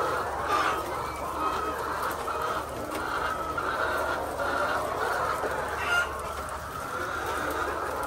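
A flock of layer chickens calling and clucking all together in a continuous chatter, with a couple of louder calls standing out about half a second in and near six seconds.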